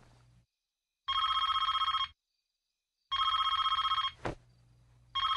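Cordless telephone ringing: three rings, each about a second long and a second apart, the third starting near the end.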